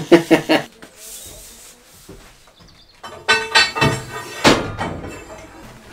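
Brief laughter, then, about three seconds in, steel bars knocking together and ringing as they are handled, with three or four clanks that fade out before the end.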